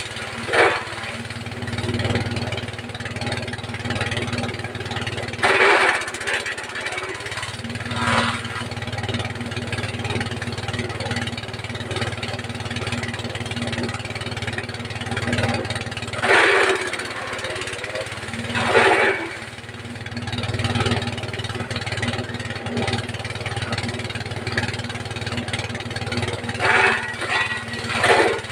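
Forage chopper driven by a 5.5 hp diesel engine running steadily, with several short louder surges of chopping noise as feed material goes through the blades.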